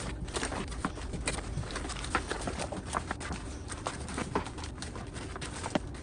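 Irregular light clicks and knocks, a few a second, from hand work on a car door's glass and fittings, over a low steady rumble.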